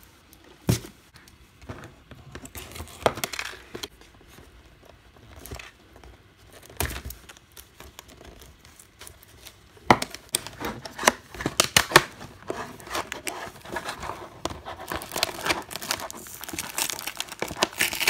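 A clear plastic blister pack on a printed cardboard card being handled and pried open: scattered crinkles and taps at first, then dense crinkling and tearing of the plastic from about halfway through.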